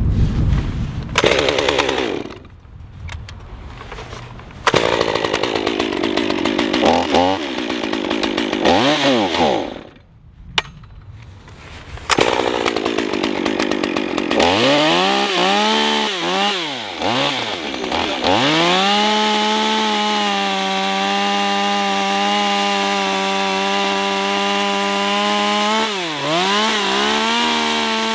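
STIHL MS 201 top-handle two-stroke chainsaw being started and run. It falls quiet briefly about ten seconds in, then is blipped in a series of quick rising and falling revs. From past the halfway mark it is held at a steady high pitch at full throttle as it cuts into a log.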